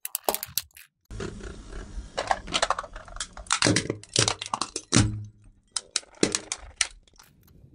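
Small plastic handheld battery fans cracking and crunching under a car tyre: a run of sharp snaps and crackles over a low rumble.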